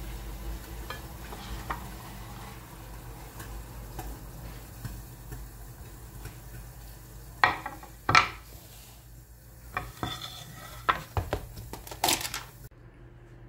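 Dishes and cutlery clinking: a few sharp clinks and clatters over a low steady hum, mostly in the second half.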